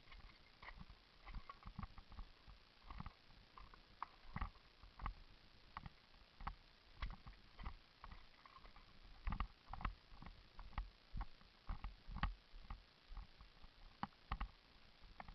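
Irregular footsteps with light clicks and knocks of gear, a few a second, close to the microphone.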